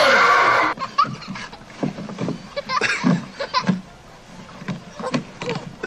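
Splashing and shouting echoing in an indoor swimming pool, cut off abruptly within the first second. Then a much quieter stretch of scattered short sounds, a few of them voice-like.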